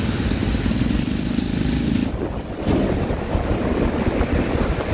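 Traffic on a wet road, with a motorbike engine humming past. From about two seconds in, wind rumbles on the microphone over the road noise.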